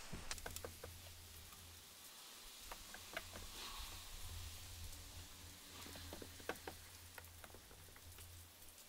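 Microfiber cloth wiping a car windshield, heard through the glass from inside the car: faint rubbing with scattered small ticks and clicks as the cloth moves over the glass.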